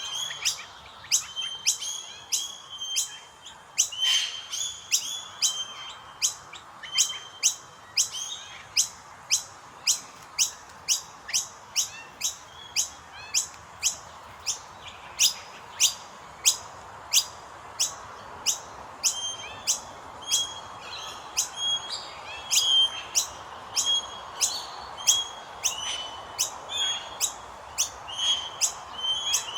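Common myna (Indian myna) chicks begging, a steady run of sharp, harsh chirps about twice a second with shorter whistled notes between them.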